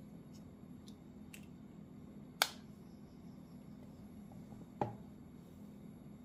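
AirPods Pro 2nd-generation charging case lid snapping shut with one sharp click about two and a half seconds in, after a few faint handling ticks. A second, softer click with a dull knock follows about two seconds later, over a steady low hum.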